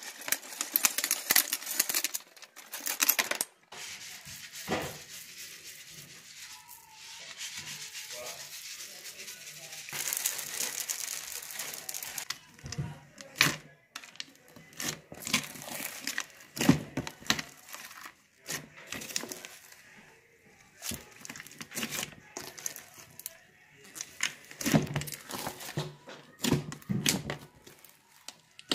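Hand kneading and folding a large batch of white slime mixed with foam beads, giving irregular crackling, squelching and sharp clicking sounds as the beads crunch and the slime pops.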